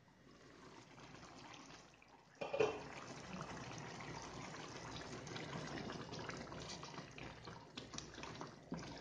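Chicken curry gravy simmering and bubbling in a pan. It is faint under a glass lid at first, then plainer and steadier with the lid off from about two and a half seconds in. A wooden spatula stirs through the gravy near the end.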